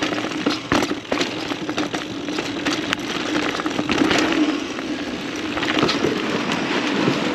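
Mountain bike riding over a dirt trail: tyres rolling on the ground, with the chain and frame rattling and clacking sharply over bumps. Heard from a camera strapped to the rider's chest.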